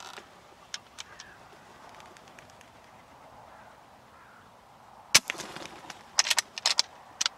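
A single sharp crack of a BSA Superten .22 PCP air rifle shot about five seconds in, followed by a quick run of sharp clicks and knocks as the rifle's bolt is worked.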